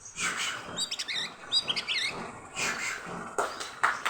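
Oriental magpie-robin (kacer) singing a quick run of varied whistled and chirping notes, the bird in full breeding condition.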